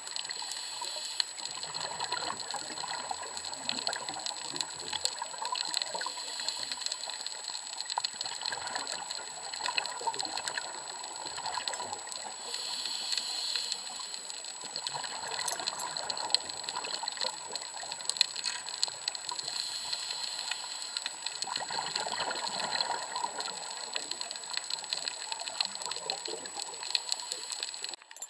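Underwater sound picked up by an action camera in its waterproof housing: a continuous crackle of fine clicks under a rushing wash of water, swelling at times in a way that fits a scuba diver's exhaled regulator bubbles.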